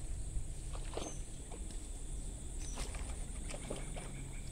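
Steady high-pitched insect trilling from the surrounding vegetation, with a scatter of short rustles and clicks close by about a second in and again three to four seconds in.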